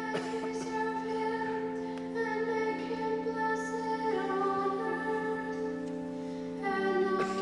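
Church organ holding sustained chords that change about every two seconds, with a female voice singing along.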